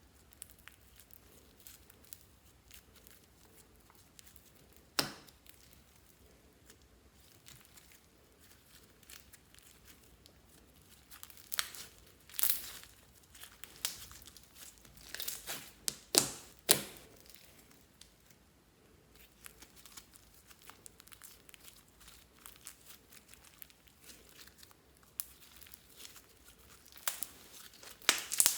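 Fluffy slime being kneaded and stretched by hand, giving scattered sticky pops and crackles. A cluster of louder pops comes in the middle, with another near the end.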